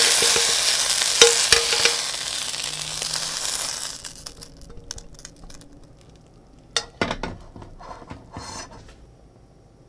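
Sliced onions sizzling in a frying pan as they are scraped out with a spatula, with light clicks of the spatula on the pan; the sizzle dies away over the first four seconds. About seven seconds in come a few sharp knocks and a short scrape as the last of the onions are pushed onto the plate.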